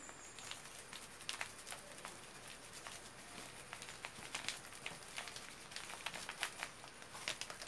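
A plastic sachet of seasoning powder crinkling as it is squeezed and worked by hand, in faint, irregular crackles.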